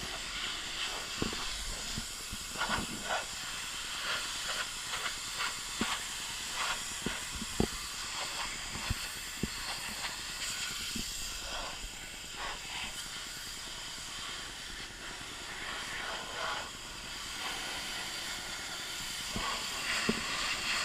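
Pressure washer spray hissing steadily against a car's body, with irregular sharp ticks and spatters, mostly in the first half.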